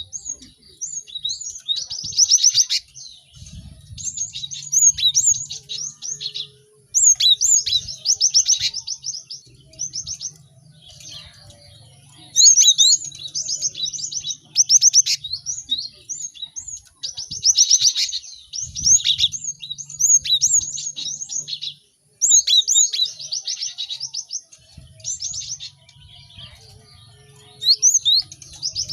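Cinereous tits (gelatik batu) calling and singing busily, in repeated bouts of rapid, high chirps and trills a second or two long, with several birds overlapping.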